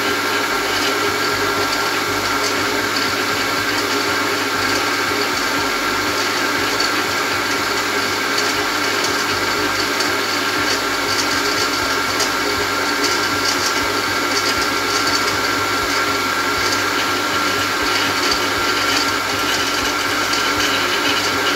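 A pillar drill's 1.5 kW electric motor runs steadily through its belt and a 6:1 reduction tapping head, turning in reverse to back a very fine tap out of the workpiece with no strain. It stops near the end.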